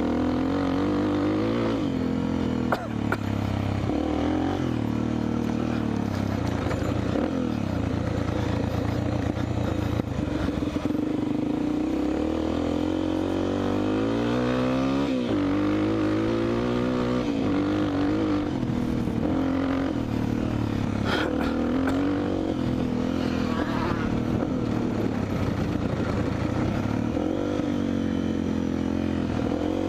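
Dirt bike engine running steadily, its revs rising and falling several times, with the clearest swing about fifteen seconds in.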